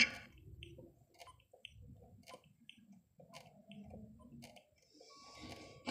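Faint, irregular clicks and short high ticks over a low background rumble, with a brief steady tone and a hiss near the end.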